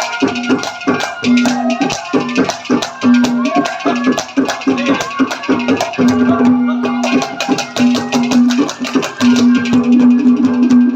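Instrumental interlude of Haryanvi ragni folk music: a steady held drone note that breaks off and returns, under a moving melody line, with fast, even drumming and rattling percussion.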